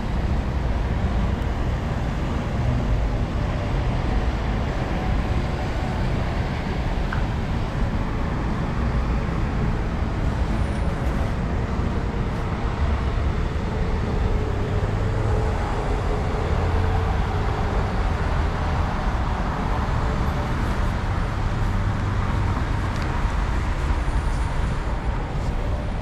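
Steady city traffic noise at a wide road intersection: cars passing with a continuous low rumble.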